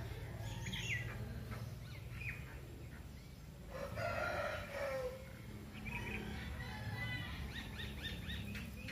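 Small birds chirping in short, quick calls, with a rapid run of chirps near the end, and a rooster crowing once about four seconds in, its call ending on a falling note.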